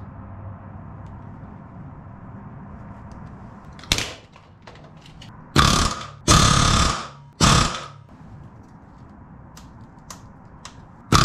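Pneumatic rivet gun driving solid aluminium rivets into an aircraft wing's main spar: three short bursts of rapid hammering, starting about halfway through, over a low steady hum.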